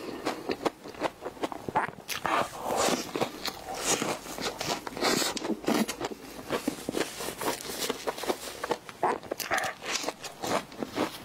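Close-miked chewing and lip smacking from someone eating a strawberry cream puff filled with whipped cream, in irregular wet bursts and clicks.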